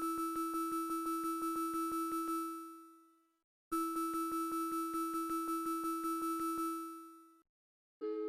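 Synthesized emergency-alert tone: a pitched electronic tone pulsing rapidly, about six or seven pulses a second, sounded in two bursts of about three seconds, each fading out into silence. Near the end a different steady two-note alert tone begins.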